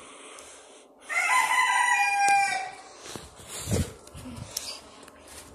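A rooster crows once, about a second in: a single crow lasting about a second and a half that ends a little lower in pitch. A few low thuds follow.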